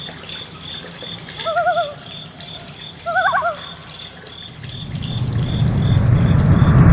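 A high chirp repeating steadily about three times a second, with two short warbling, bird-like calls. A low rumble swells up over the last couple of seconds.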